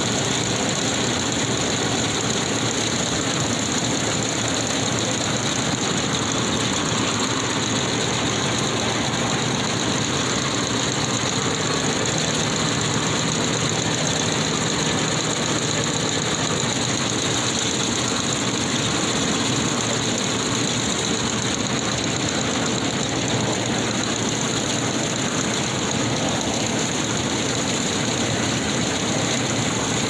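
Combine harvester running steadily while it cuts rice, a constant dense engine and machinery noise with a steady high hiss over it.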